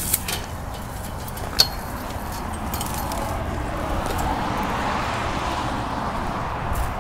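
Footsteps through dry grass and gravel on a hillside path, over a low rumble. There are two sharp clicks in the first two seconds, and a hiss swells and fades in the middle.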